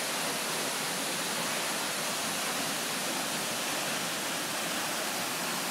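Steady rushing of a tall waterfall falling into a rocky pool.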